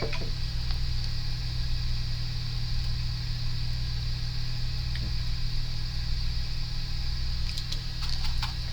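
Steady low hum and hiss of electronics-repair bench equipment running, with a few faint clicks of small tools on the board about five seconds in and near the end.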